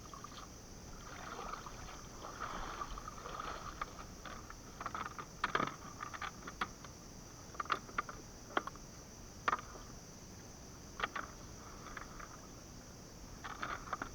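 Water sloshing and splashing, with a scatter of short, sharp splashes through the second half, over a steady high insect drone.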